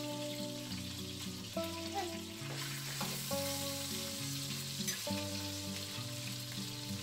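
Stuffed squid sizzling in hot cooking oil in a frying pan, a steady frying hiss, with background music playing over it.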